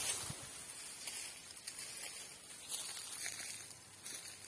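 Quiet outdoor ambience with a few faint, soft rustles and ticks.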